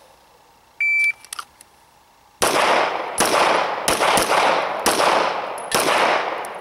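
A shot timer's start beep, then six rapid 9mm shots from an S&W M&P Pro Series pistol, fired in about three and a half seconds, each trailing off in echo.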